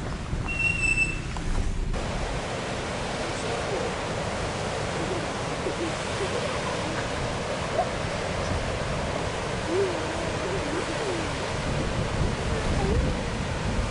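Wind blowing on the microphone over the steady wash of ocean surf breaking on a reef.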